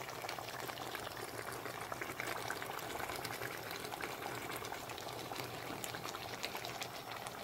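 Deer meat curry in a thick oil-and-spice gravy bubbling steadily in a steel pot, with many small pops and spits. It is at the kosha stage, being cooked down until the masala is well browned.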